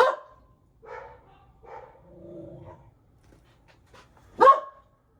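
A dog barking: two sharp barks, one at the start and a louder one about four and a half seconds in, with softer short sounds in between.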